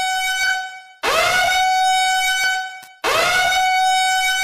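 Alarm-horn warning sound effect: repeated horn-like blasts, each swooping up briefly in pitch and then holding one steady note for about two seconds before cutting off, a new blast starting about every two seconds.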